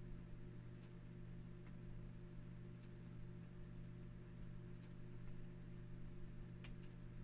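Quiet steady low hum, with a few faint, soft taps of a cotton ball dabbing paste onto a stretched canvas.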